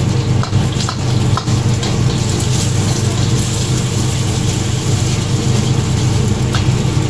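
Egg sizzling in hot oil in a carbon-steel wok over a high gas flame, stirred with a metal ladle that gives a few short scrapes and taps against the wok. Under it runs a steady low rumble from the burner.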